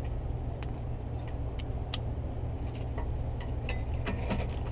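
A few sharp metallic clicks and clinks of hand tools and sockets against metal, some bunched together near the end, over a steady low rumble.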